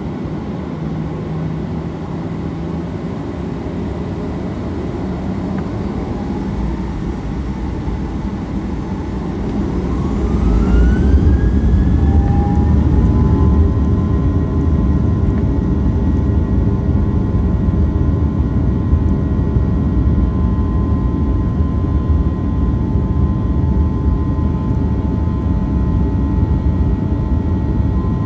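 Boeing 737-700's CFM56-7 jet engines spooling up to takeoff thrust, heard from the cabin over the wing: a whine rising in pitch, with the low rumble growing louder about ten seconds in. The engines then run steadily at full power with a high whine over the rumble as the takeoff roll gets under way.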